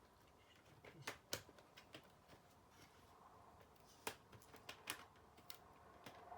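Faint, scattered clicks and taps of small plastic and metal laptop parts and screws being handled during reassembly, a few sharper ones standing out about a second in and again around four to five seconds in.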